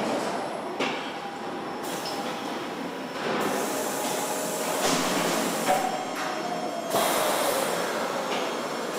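Car assembly-line machinery running: a steady mechanical din that changes abruptly several times, with a faint falling squeal about six seconds in.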